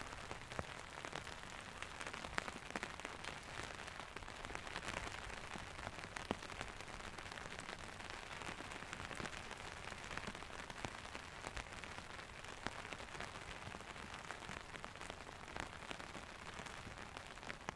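Wet snow falling: a steady soft hiss with many small, scattered ticks of flakes and drops landing.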